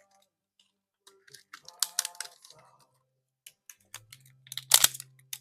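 Unpacking a new chainsaw engine kit: scattered clicks and crinkling of packaging being handled, with one sharp knock near the end.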